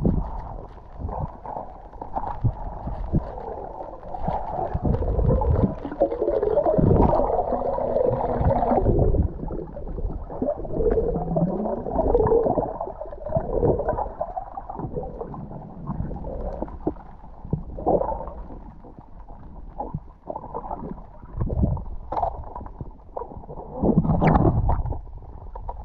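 Muffled underwater sound picked up through a waterproof camera housing: gurgling and bubbling, with many short knocks and bumps.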